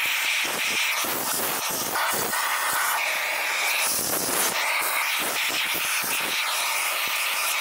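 Steady hiss of air rushing through a hose nozzle as it is worked over the bare sheet metal of a sanded car engine bay, clearing dust and debris. The tone shifts as the nozzle moves, and the sound cuts off abruptly at the end.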